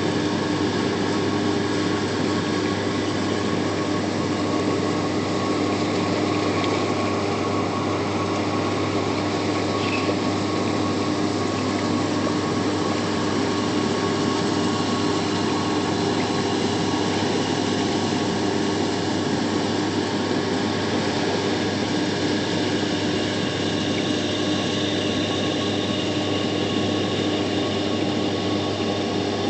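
AquaCannon aeration system running: a steady machine hum with a few held pitches, over a constant wash of water churning as the aerator boils the surface into foam.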